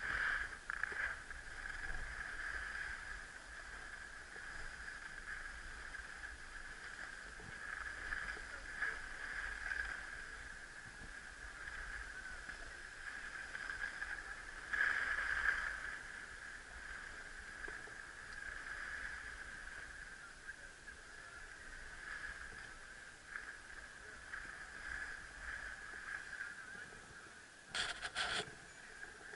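Skis or board sliding down packed, groomed snow: a steady scraping hiss from the edges on the snow that swells and fades as the rider turns and slows, with wind rumble on the microphone. A short, louder clatter comes near the end.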